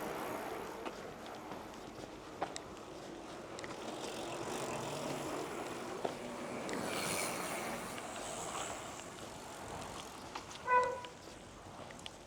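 Outdoor village street ambience, with something passing by in the middle and a short, pitched beep-like tone near the end.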